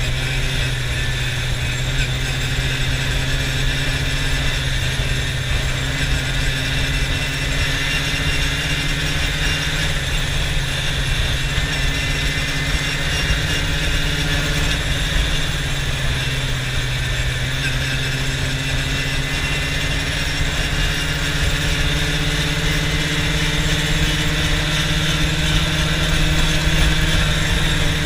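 Quad bike (ATV) engine running steadily while riding along a road, heard from the seat. Its note sags briefly around the middle and picks up again, over a steady rush of noise.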